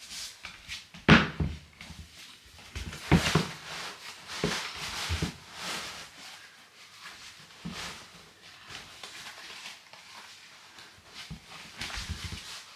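Handling noise from pulling on a long winter boot: rustling and scattered knocks and thumps, the sharpest about a second in and about three seconds in.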